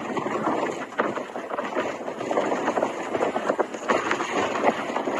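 Strong blizzard wind buffeting a microphone: a steady loud rushing noise full of fine crackles.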